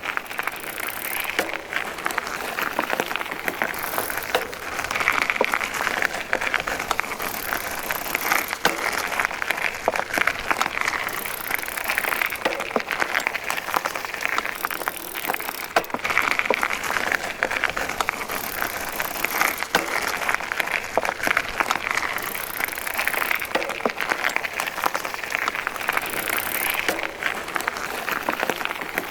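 Bicycle being ridden: a steady rolling rattle of chain and tyres with many small clicks, and a brief high hiss that recurs about every three to four seconds.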